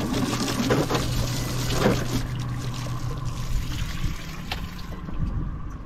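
Water spraying from a boat's coiled washdown hose onto the deck. A steady low hum stops about four seconds in, and the spray dies away near the end.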